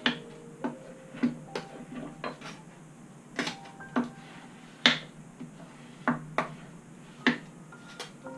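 Sharp metallic clicks and taps from hand tools working on a guitar neck, irregularly spaced, some leaving a brief ringing tone.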